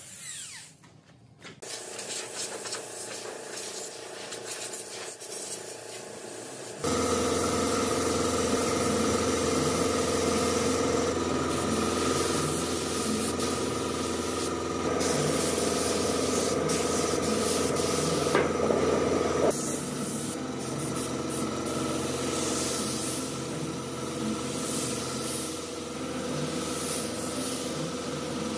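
A handheld angle grinder with a sanding disc working wood for the first several seconds. Then, after an abrupt cut about seven seconds in, a gravity-feed pneumatic spray gun hissing steadily as it sprays a clear finish onto a hardwood table, with a steady hum beneath.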